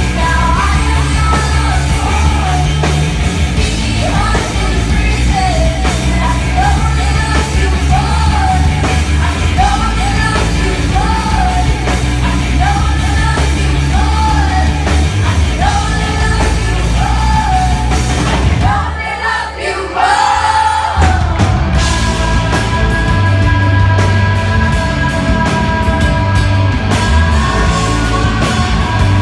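A live rock band plays loud: distorted electric guitars, bass guitar and drums, with a woman singing over them. About two-thirds of the way through the bass and drums drop out for a moment, and the guitars then carry on with long held notes.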